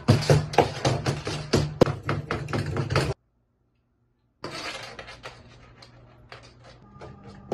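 Background music with a fast, steady percussive beat over a bass line. It cuts off about three seconds in, and after a second of silence softer music with light taps and held tones comes in.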